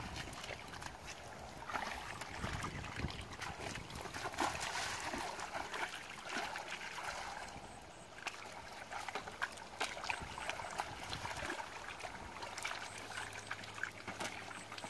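Shallow muddy water splashing and squelching irregularly as hands grope through it and bare feet and legs wade in the mud.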